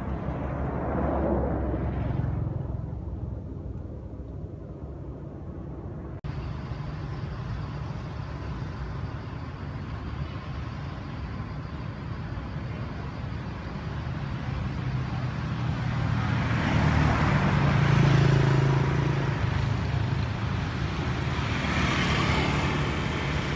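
Road traffic passing: a car goes by in the first couple of seconds, then, after an abrupt change in the background about six seconds in, another vehicle approaches and passes, loudest about 18 seconds in, with a further swell near the end.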